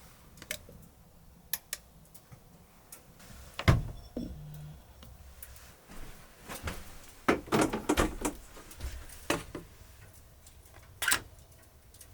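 Scattered knocks, clicks and clunks of objects being handled and set down in a small wooden room, with one heavy thunk about four seconds in and a busy cluster of knocks around two-thirds of the way through.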